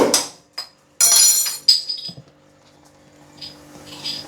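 Kitchen clinks of glass and a mixing bowl. About a second in there is a short, loud fizzing splash of Black Label beer being poured into flour for a batter, then light clinks of a utensil against the bowl near the end.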